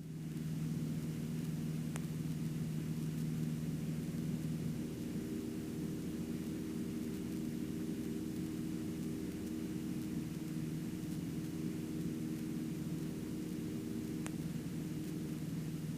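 The Cessna 150's four-cylinder Continental O-200 engine running steadily, heard faintly as a low hum under a light hiss; its tone shifts slightly about five seconds in.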